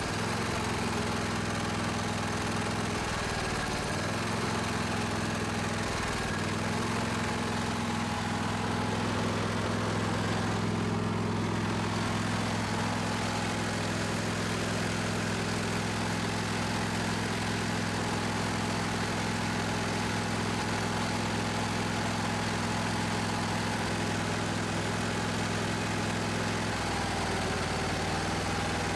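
Briggs & Stratton 22 hp overhead-valve V-twin lawn tractor engine running steadily, with a spark plug wire pulled off so one cylinder is dead. Its note shifts a few times, about 3 and 6 seconds in and again near the end, which the owner calls surging, brought on by the dead cylinder.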